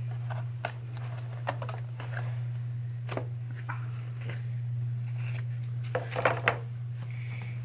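Rustling, tapping and clicks of a board game box and its packaging being opened and handled, with a brief louder burst about six seconds in, over a steady low hum.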